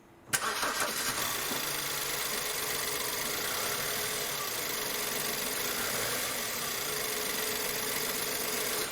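BMW E91 318i's four-cylinder petrol engine idling steadily, coming in suddenly just after the start. It is misfiring, with the computer reporting a misfire on three cylinders.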